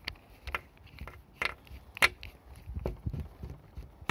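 Everbeam E8 flashlight being handled as the battery is put in and the tail cap screwed back on: a series of sharp clicks and knocks, the loudest about two seconds in, with some low rumbling from handling.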